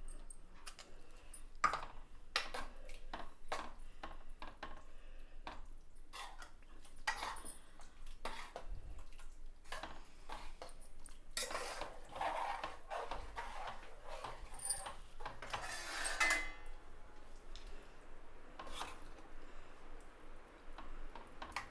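A spoon stirring a thick dal curry in a cooking pot, with repeated clinks and scrapes against the pot, busiest a little past halfway through and then thinning out.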